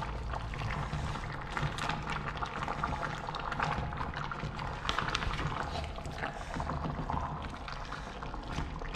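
Pot of brown stew chicken simmering with vegetables, with steady bubbling and small crackles and pops. A low steady hum runs underneath.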